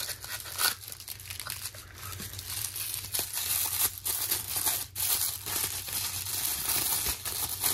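Thin tissue paper crinkling and rustling as it is unwrapped and crumpled by hand: a dense, irregular run of small crisp crackles.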